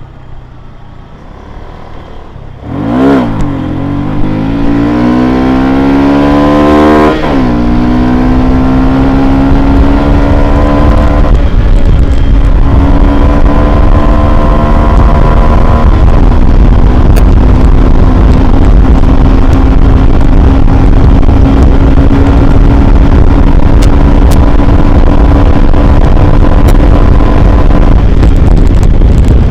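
Yamaha FZ16 (Byson) carbureted 153 cc single-cylinder four-stroke on its stock exhaust, accelerating hard about three seconds in, with the pitch climbing steeply for several seconds. The pitch drops sharply at a gear change and the engine then holds steady at high revs, with heavy wind noise on the microphone.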